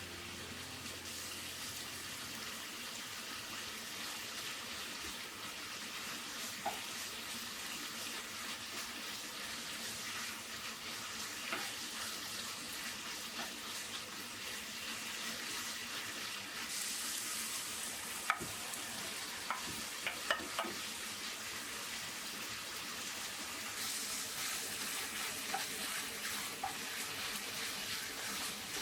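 Food sizzling in a frying pan with a steady hiss, and a few sharp clicks scattered through it.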